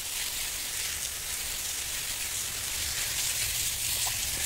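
Fine water spray from a hand-held nozzle hissing steadily and spattering onto rock samples and wet concrete as they are rinsed.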